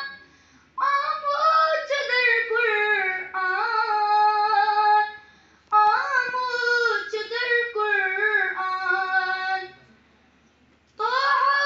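A boy singing a naat solo and unaccompanied, in long melodic phrases with held, gliding notes. Two full phrases are separated by short pauses, and a third begins near the end.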